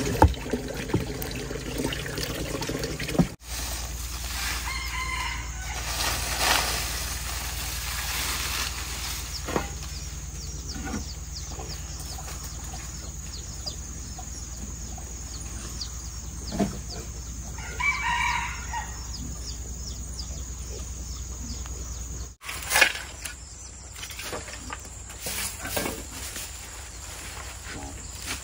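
A rooster crowing once, a little past halfway through, over a steady background with scattered knocks and rustles.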